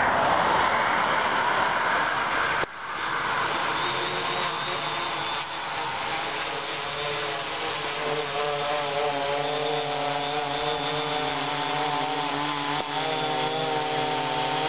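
3D Robotics DIY Quad kit quadcopter's four electric motors and propellers buzzing in flight as it comes lower. Several steady pitched tones grow stronger over the last half. A rushing noise in the first few seconds cuts off suddenly.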